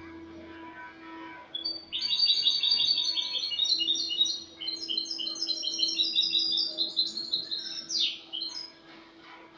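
European goldfinch (Spanish jilguero) singing: a few quiet notes, then from about two seconds in a long, rapid run of high twittering notes lasting some six seconds, closed by a sharp falling note. A faint steady hum sits underneath.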